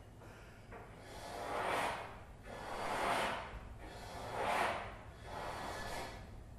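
Trombone blown with unpitched breath noise: four rushes of air through the instrument that swell and fade, about one and a half seconds apart.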